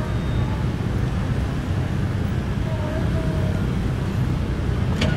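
Steady low engine rumble with wind-like noise over it, unchanging throughout.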